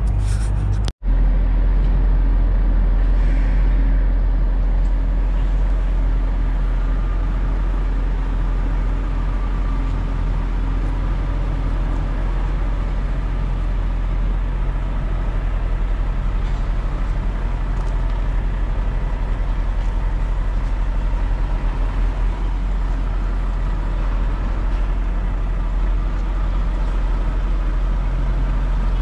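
Lorry engine and road noise while driving: a steady low drone. It breaks off for an instant about a second in.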